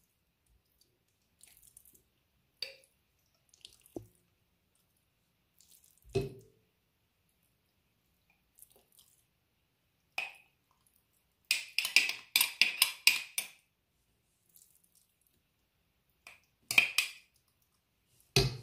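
A spoon scoops thick ajvar (roasted red pepper paste) and scrapes and taps it into a glass jar. Scattered soft clicks and wet plops come with quiet gaps between them, and a quick run of sharp clinks comes about twelve seconds in.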